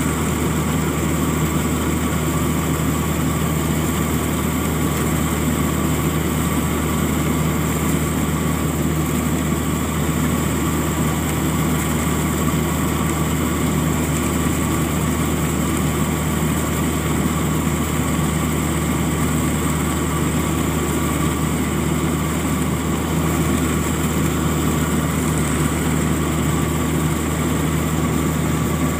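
Rice combine harvester running steadily while cutting and threshing, heard from on the machine: a constant engine drone with the whine of its machinery, unchanging throughout.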